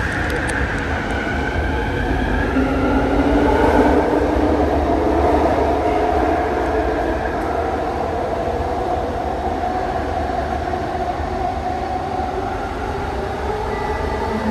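Bombardier ART200 metro train in motion: a steady rumble of wheels on rail with the whine of its linear-induction motor drive, whose tones slowly shift in pitch. The noise is loudest about four seconds in.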